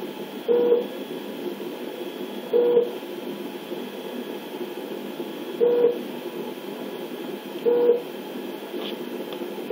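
Baby hiccupping, four short squeaky hics spaced two to three seconds apart, over a steady hiss.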